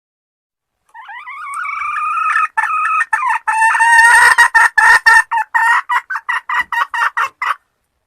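A hen calling: one long, drawn-out wavering note, then a quick run of short, sharp clucks at about four a second that stops abruptly.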